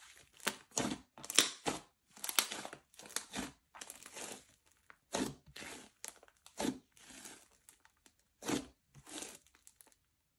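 Slime being squeezed, stretched and folded by hand, giving an irregular series of crackling, squishy bursts, each a fraction of a second to about half a second long.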